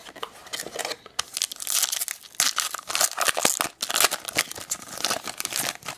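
Shiny wrapper of a 2007 Upper Deck SP Rookie Edition baseball card pack being torn open and crinkled by hand, a dense irregular crackling.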